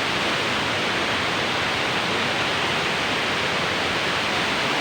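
Waterfall rushing, a steady unbroken hiss of falling water.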